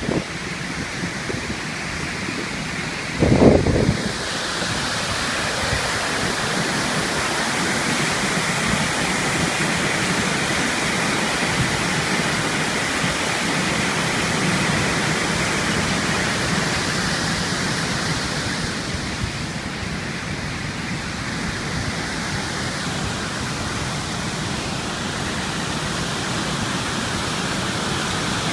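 Water pouring over a waterfall: a steady, even rush of noise, with a brief low rumble about three seconds in.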